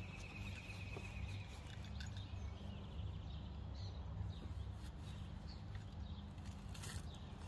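Faint outdoor ambience: a low steady rumble with a thin bird call in the first two seconds and a few light clicks.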